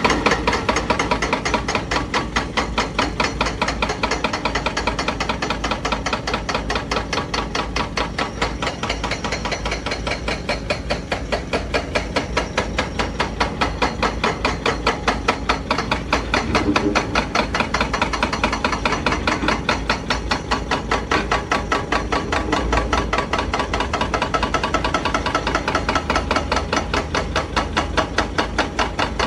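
Hydraulic breaker on a Zoomlion ZE335E excavator hammering rock, a steady run of rapid blows several times a second, over the low running of the excavator's diesel engine.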